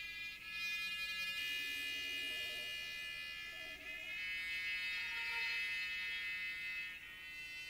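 Electronic tape sounds made from transformed violin recordings: a dense cluster of sustained high tones that shifts to new pitches a few times, with faint lower notes in the middle.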